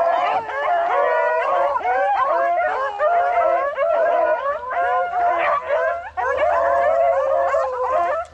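A pack of beagles baying together in full cry, several voices overlapping without let-up, as they run the scent trail of a freshly jumped rabbit. The chorus starts abruptly and dips briefly about six seconds in.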